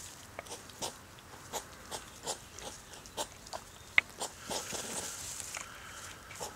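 European hedgehogs huffing in courtship: a rapid series of short, sharp puffs, about two or three a second, with one louder click about four seconds in.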